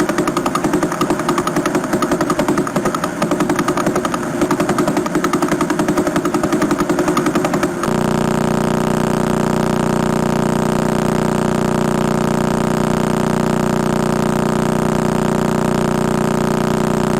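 Pulsar radio signals recorded by radio telescopes and played back as sound: first a fast, even train of pulses, then about eight seconds in an abrupt switch to a steady buzzing hum as a second pulsar plays.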